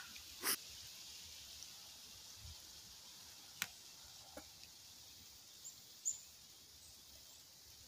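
Quiet woodland ambience: a faint steady hiss, a soft sharp click about three and a half seconds in, and a couple of brief high chirps about six seconds in.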